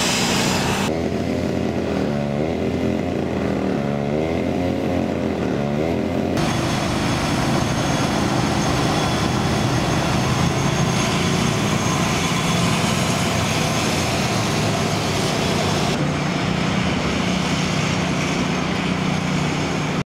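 Motor vehicle engine and road noise. For the first several seconds the engine's pitch rises and falls several times, then it gives way to a steady rumble with hiss.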